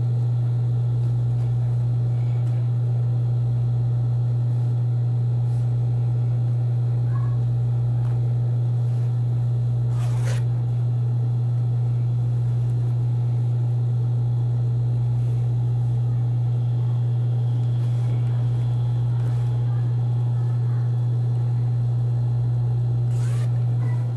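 Steady low electric hum of an industrial sewing machine's motor running idle, with light rustling of trouser fabric being handled and a click about ten seconds in and another near the end.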